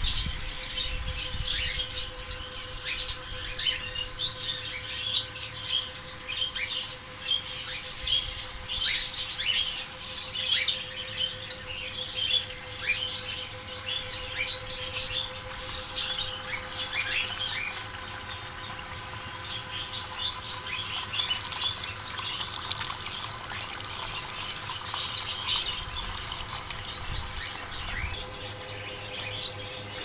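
A shed full of small cage birds chirping and squawking continuously over a steady hum, with water trickling.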